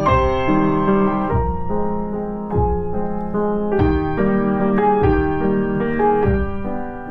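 Background piano music: a slow melody over low notes struck about every second and a quarter.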